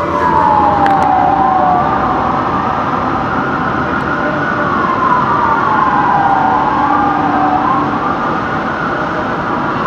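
Smeal fire engine's siren on the wail, sweeping slowly down and up in pitch with each rise and fall taking several seconds, loud as the engine passes below running code 3 to an emergency.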